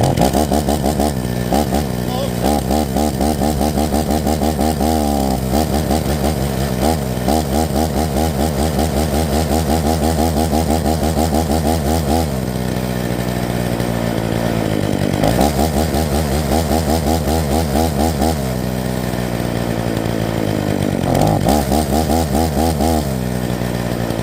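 A small two-stroke chainsaw engine running, its speed rising and falling unevenly and settling several times into a lower, steadier idle. The uneven idle is what the owner puts down to carburetor trouble, guessing the high and low jets of a Walbro carb need adjusting.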